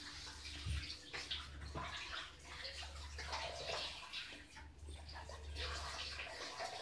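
Faint water sloshing and splashing with light handling noise, over a low hum that drops out briefly twice.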